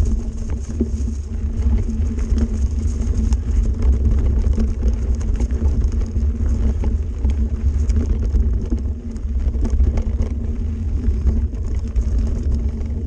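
Mountain bike rolling fast over a leaf-covered dirt singletrack, picked up by a camera mounted on the bike: a heavy, continuous low rumble of wind and vibration on the microphone, tyre noise, and many small clicks and rattles as the bike runs over bumps and roots.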